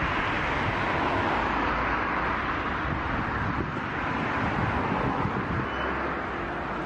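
Steady rush of a stormy sea's surf, with wind buffeting the microphone in a low rumble underneath.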